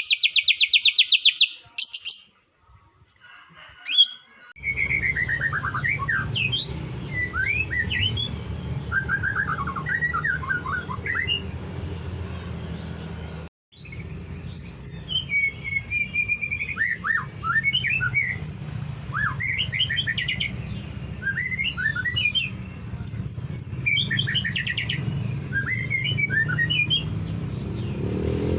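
White-rumped shama (murai batu) singing: about a second and a half of fast chattering notes, then after a short pause a long run of varied whistled phrases rising and falling in pitch, over a steady low hum. The song breaks off for a moment about halfway through.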